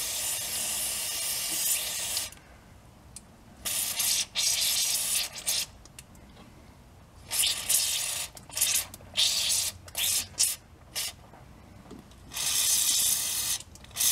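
Aerosol can of penetrating lubricant spraying through its straw to soak a tie rod end before it is loosened. A steady hiss for about two seconds, then a run of shorter hissing squirts, several of them well under a second, with short pauses between.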